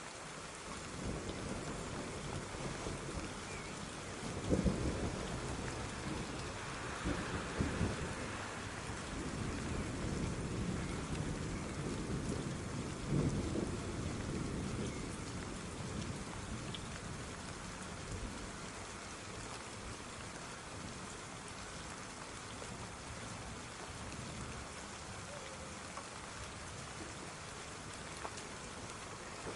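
Steady rain falling, with low rolls of distant thunder in the first half, the loudest about four, seven and thirteen seconds in.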